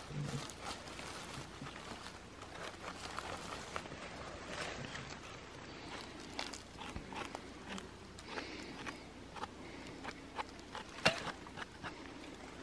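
Faint rustling and scattered light clicks of handling in dry leaf litter as a small cep is cut and picked, and a wicker basket is moved about, with one sharper click about eleven seconds in.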